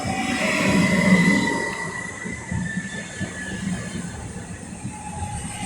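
Train running on the rails with its wheels squealing: thin high squeal tones over a low rumble, loudest about a second in and then easing off.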